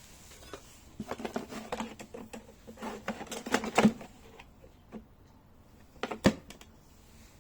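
Clattering clicks and rattles of hard items being handled for a few seconds, then one sharp knock about six seconds in.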